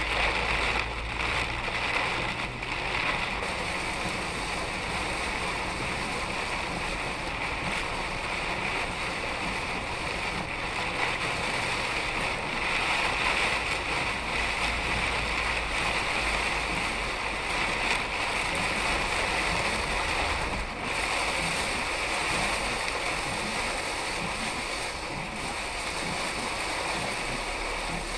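Steady rush of heavy rain and tyre spray on a wet road, heard from inside a moving car through its dashcam microphone.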